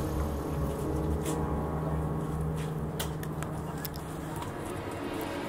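Low, steady rumble of a running engine, with a few light clicks.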